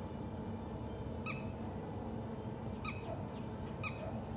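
Three short, high squeaky calls, the first about a second in, over a steady low background rumble.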